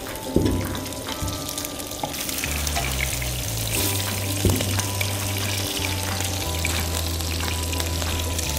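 Flour-dredged fish sizzling as it shallow-fries in hot oil in a pan, browning on both sides, with a couple of sharp clicks of a fork against the pan.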